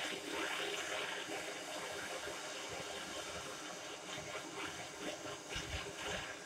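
Gas blowtorch flame hissing steadily as it heats a 50cc two-stroke exhaust to burn out the carbon deposits inside.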